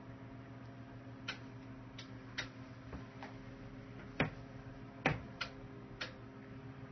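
Sharp, irregular clicks, about nine of them with the loudest two near the middle, as the controls and switches of a GK-71 tube HF linear amplifier are worked while it is tuned. They sound over a steady low hum.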